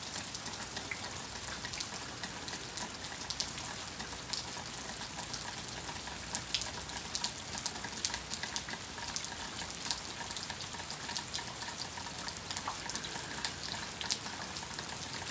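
Light freezing rain falling on ice-coated trees and ground: a steady hiss scattered with many small ticks of drops striking ice.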